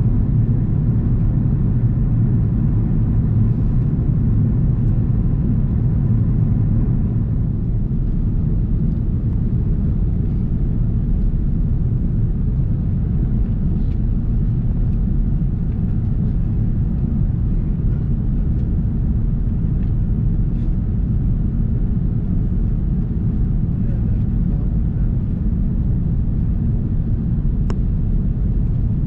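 Airbus A330-300 cabin noise on final approach: a steady low rumble of engines and airflow. A faint high whine fades out about seven seconds in, and there is one faint click near the end.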